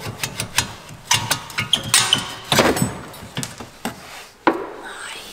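Irregular metal knocks, clanks and rattles as a VW Golf 5 front suspension strut, its coil spring held compressed, is worked upward by hand and out of the wheel hub. The clatter is densest midway, with a sharp knock near the end.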